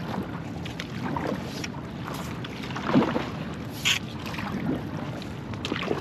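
Stand-up paddle board being paddled across calm water: paddle strokes and water lapping at the board, with wind buffeting the microphone. A couple of brief, sharper sounds stand out about halfway through.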